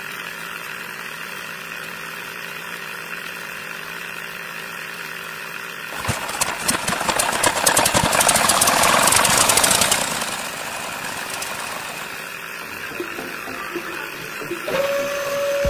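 A small motor running steadily, growing louder and rougher for about four seconds in the middle before settling again. A steady whine joins near the end.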